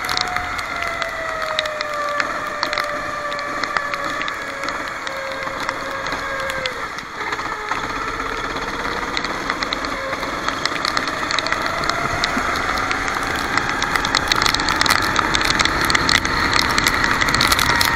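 Racing kart's engine under way, its pitch falling gradually for about seven seconds as it slows, then rising steadily for the rest as it accelerates again, with a constant crackling and rattling over it.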